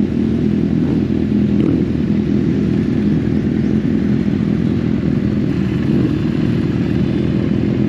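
Kawasaki Z800 motorcycle's inline-four engine running steadily as the bike rolls along at low speed.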